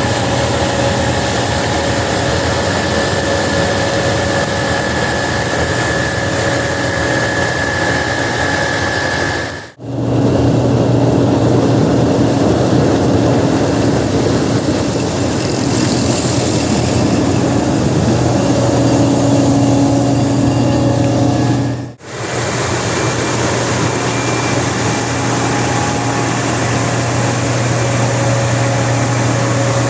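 Harvest machine's engine running steadily with a constant hum. The sound dips out briefly twice, about a third and two-thirds of the way through.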